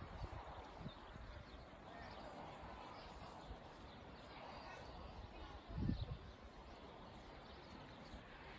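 Faint open-air town ambience heard from a hilltop: a steady distant hum with a few faint bird chirps, and a brief low thump about six seconds in.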